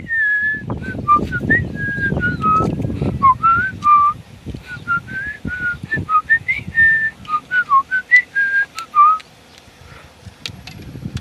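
A person whistling a tune, a run of short held and gliding notes that stops about nine seconds in.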